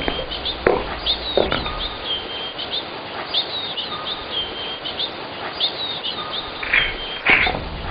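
Birds chirping in a background ambience: short high chirps and whistles repeating about once a second, with a few brief rustling bursts, the loudest near the end.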